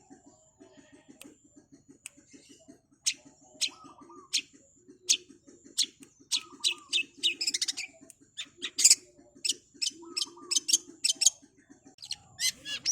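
Long-tailed shrike (cendet) singing: sharp, high calls that come thicker and faster from about three seconds in, over a low, rapid chatter.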